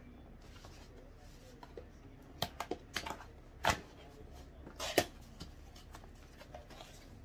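Objects being handled and set down: a scatter of sharp clicks and rustles, with the loudest knocks about three and a half and five seconds in.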